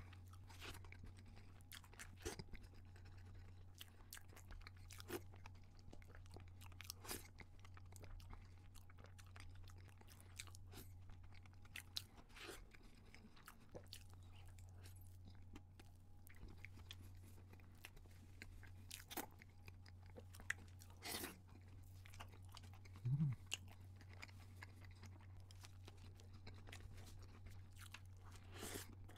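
Close-miked eating: chewing and crunching of chocolate cake and a nut-topped chocolate donut, with scattered wet mouth clicks and bites. A steady low hum sits underneath, and there is one short low-pitched sound about three-quarters of the way through.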